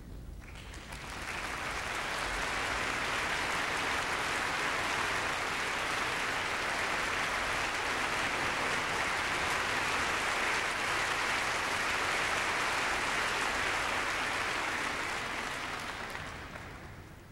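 Concert-hall audience applauding as the soloist and conductor take the stage before the piece. The clapping swells within the first couple of seconds, holds steady, and dies away near the end.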